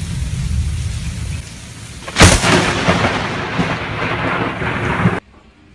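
Rain with a low rumble, then a sudden, very loud thunderclap from a close lightning strike about two seconds in. Thunder rumble and rain follow, cut off abruptly near the end.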